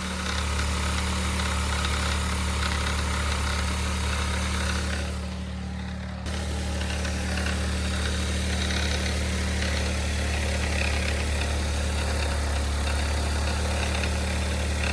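Mitsubishi i's small three-cylinder engine idling steadily, with the abnormal noises the owner reports: a rattle he traces to a failing air-conditioning compressor, strained by the new auto-tensioner, and a whirring he believes comes from inside the engine. The sound goes briefly muffled about five seconds in, then comes back abruptly.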